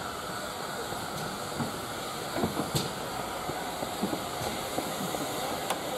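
Steam locomotive hauling goods wagons slowly towards the listener: a steady rushing background with irregular sharp clanks and clicks from the train, most of them in the second half.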